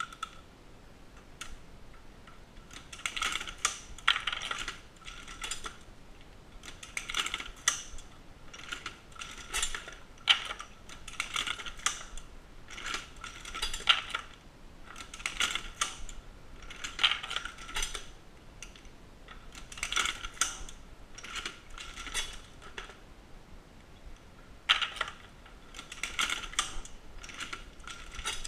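Dillon SL900 progressive shotgun-shell reloading press being cycled by hand: bursts of metallic clicking and clattering about every two seconds, one burst per stroke of the handle, starting about three seconds in.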